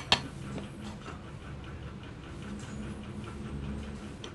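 Aluminium rafter square clicking against a cordless planer's metal base plate as it is set in place: two sharp clicks right at the start, then faint ticks of handling.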